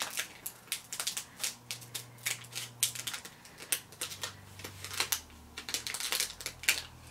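Small plastic snack packet crinkling and being pulled open by hand, a dense, irregular crackle of the wrapper.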